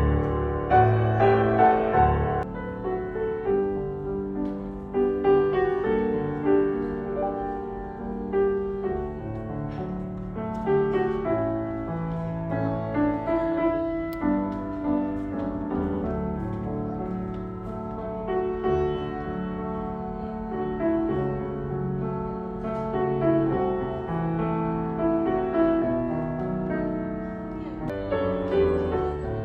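Background music led by piano, in a calm classical style.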